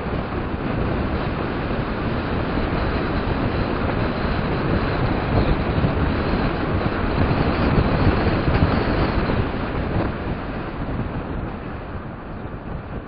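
Wind buffeting the microphone of a camera carried on a bicycle ridden fast downhill, a dense rushing noise. It grows louder toward the middle and eases off near the end.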